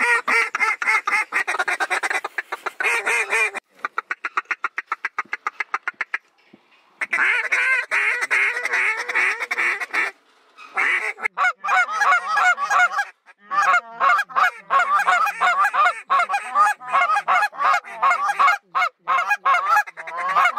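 Hand-held goose calls blown by two or more hunters in quick overlapping runs of short notes, being used to call in ducks. About a third of the way in, the calls give way to a fast, even string of short notes before the runs pick up again.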